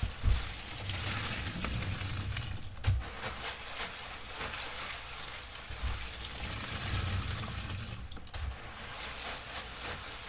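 Wet sponge full of thick fabric-softener suds being squeezed and rinsed: foamy squelching and running water, with dull thumps, the loudest just after the start and about three seconds in.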